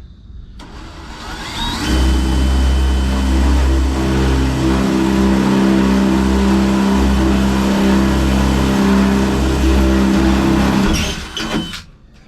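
A handheld power tool spins up, runs steadily under load for about nine seconds, then winds down, cutting through the last welds that hold the old cab support to the cab.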